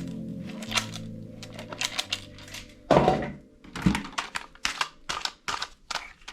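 Plastic toy gun being handled: a loud sharp clack about three seconds in, then a run of irregular light clicks and clacks, roughly two a second.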